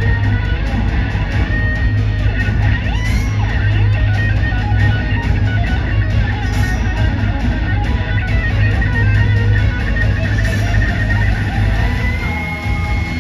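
Guitar-driven music with strummed guitar and a strong bass line, playing steadily and loudly.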